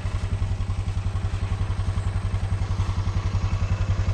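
Kawasaki Mule 610 utility vehicle's single-cylinder engine running with an even, rapid pulsing beat, getting a little louder near the end.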